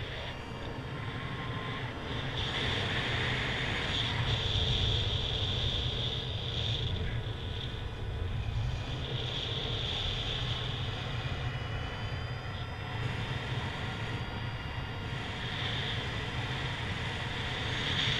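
Airflow rushing over the microphone of a paraglider's riser-mounted camera in flight: a steady low wind rumble with a hiss that swells and fades, and faint thin whistling tones.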